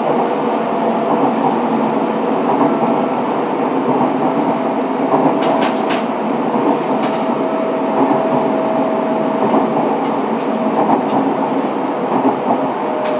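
Fukuoka City Subway 2000 series electric train running, heard from inside the car: a steady rumble of wheels on rail with a thin, steady whine, and a few clicks over rail joints a little past the middle.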